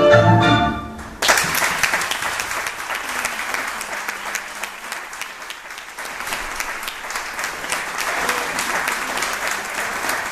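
Recorded tango music with strings fades out about a second in. The audience then breaks into steady applause.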